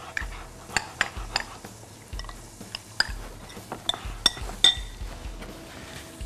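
Metal spoon clinking against a glass mixing bowl as a shredded mango salad is tossed: about a dozen irregular light clinks, the loudest a little past the middle, then they stop.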